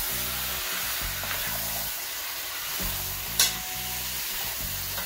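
Goat meat sizzling as it fries in browned curry in a metal pot, stirred with a metal spoon. The spoon knocks sharply against the pot once, about three and a half seconds in.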